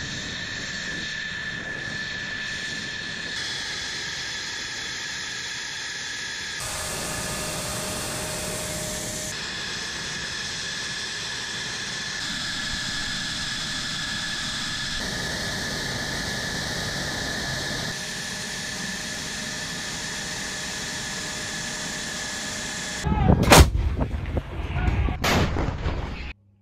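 Jet engines running with a steady high whine for most of the stretch, then, near the end, several heavy blasts from a self-propelled howitzer firing, the first the loudest.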